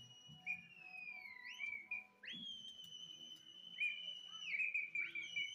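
Human whistling: several long shrill whistles in a row, each held for a second or more, rising sharply at the start and sliding down at the end, at times two overlapping. This is the whistling that pigeon fanciers aim at a flock circling overhead.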